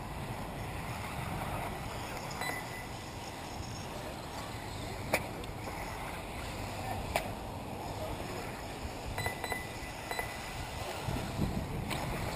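Wind rumbling on the microphone over distant 1/10-scale 4WD RC buggies racing on a dirt track, with a faint high motor whine that comes and goes. Two sharp clicks come about five and seven seconds in.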